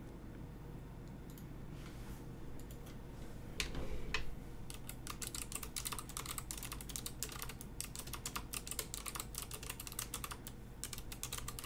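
Typing on a computer keyboard: a few scattered keystrokes, a soft thump about three and a half seconds in, then a quick run of keystrokes that stops shortly before the end.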